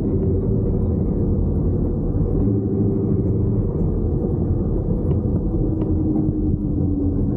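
Off-road pickup truck's engine running steadily under load, with a low rumble from driving on a dirt track.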